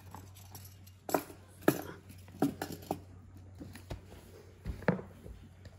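Scattered light clicks and knocks, about eight over a few seconds, like small objects being handled and set down, over a steady low hum.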